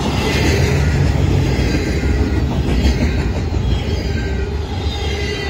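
Canadian Pacific intermodal freight train's cars rolling steadily past, a continuous low rumble of steel wheels on rail.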